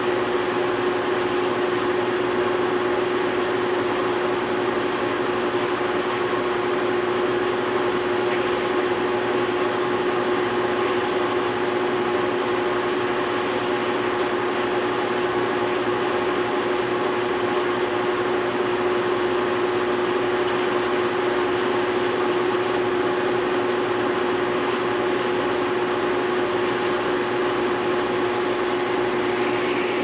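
GE GTW465 belt-drive top-load washer at full high-speed spin: a steady motor-and-basket whine over a rush of air from the spinning tub. It runs evenly with no knocking or banging, the sign of a balanced load and sound suspension.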